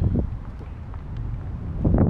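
Wind buffeting the camera's microphone: a steady low rumble.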